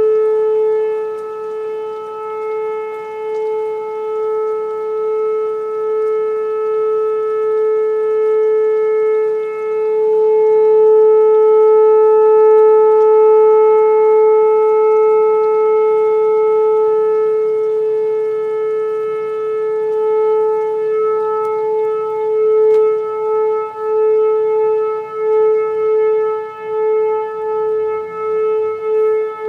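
Outdoor tornado warning siren sounding one steady, held tone. Its loudness swells and fades slowly, then pulses more quickly and regularly, about once a second, over the last several seconds.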